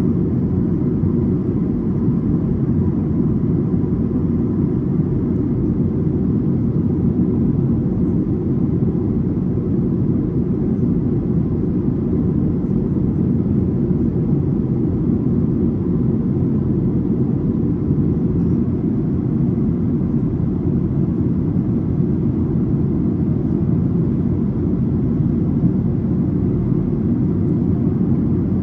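Steady cabin noise inside a Boeing 737: a low, even rumble of engines and rushing air that holds constant.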